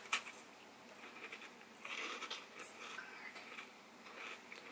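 Teeth biting into a frozen ice popsicle, with two sharp crunches at the start. This is followed by soft chewing and wet mouth noises about two seconds in.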